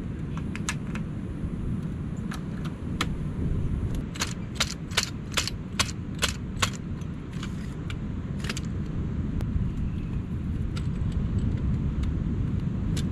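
Aluminium telescopic ladder being collapsed section by section: sharp metallic clicks, a few at first, then a quick run of about eight a little before the middle, then a few single ones later. A steady rumble, likely wind on the microphone, runs underneath.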